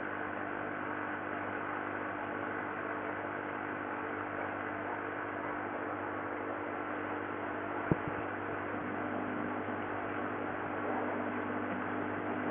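Steady electrical hum over a constant hiss, with one sharp click about eight seconds in.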